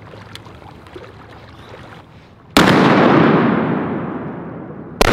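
Two shotgun shots about two and a half seconds apart, the first about halfway through and the second near the end, each followed by a long fading echo.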